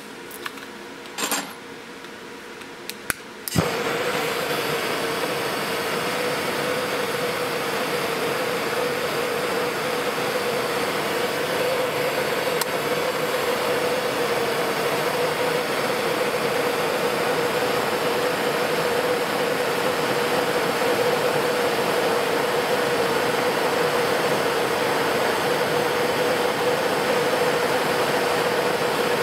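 A Bernzomatic TS8000 trigger-start torch, fed propane through a hose from a tank, lights with a sharp click about three and a half seconds in, after a few small clicks. It then burns steadily with a loud hiss and a constant hum running through it as its flame heats a copper ring.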